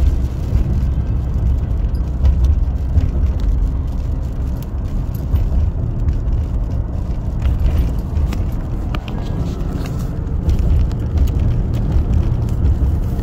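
Car interior road noise while driving: a steady low rumble, with scattered faint clicks.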